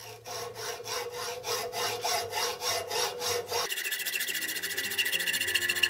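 Hand hacksaw cutting through a cast aluminium pillow block in a vise: even rasping strokes, about four a second. Near the end the sawing is cut off abruptly and background music takes over.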